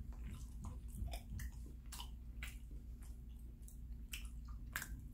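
A man chewing a mouthful of bread: irregular soft mouth clicks, several a second.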